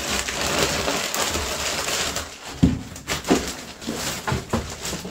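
Packing materials crinkling and rustling as they are handled and pressed into the bike box, followed by a few sharp knocks.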